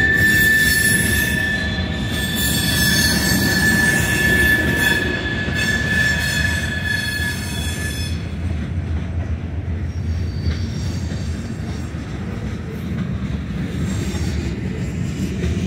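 Union Pacific manifest freight train's cars rolling past with a steady low rumble of wheels on rail. A loud, high-pitched metal squeal from the wheels rings over it and stops about halfway through.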